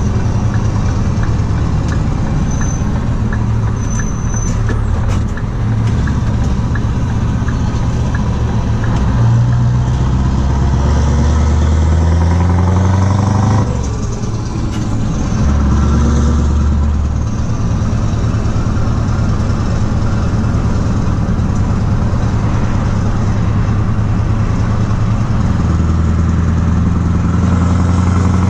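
Scania R500 V8 diesel with open, straight exhaust pipes running under way, heard from inside the cab. Its deep note changes pitch about halfway through with a short drop in loudness, then pulls steadily again.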